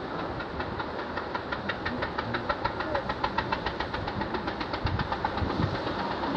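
A fishing boat's engine knocking in a rapid, even rhythm over steady wind and surf noise.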